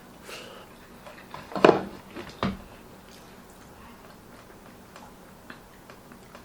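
Eating sounds: small clicks of cutlery on a plate and mouth noises, with two louder short sounds about a second and a half and two and a half seconds in.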